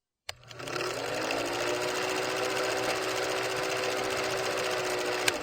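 A small electric motor switched on with a click, spinning up briefly and then whirring steadily before it stops near the end.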